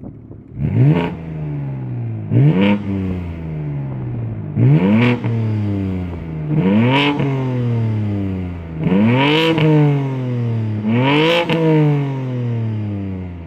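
BMW M twin-turbo straight-six engine blipped six times while parked, about every two seconds: each rev rises sharply and falls back slowly to idle, heard through its exhaust.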